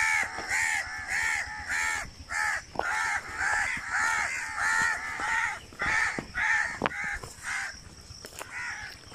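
Crows cawing over and over in quick succession, about three calls a second, growing fainter near the end.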